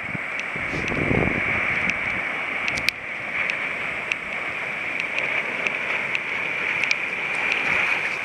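Small waves breaking and water washing in the shallows, with a low gust of wind on the microphone about a second in and scattered small clicks throughout.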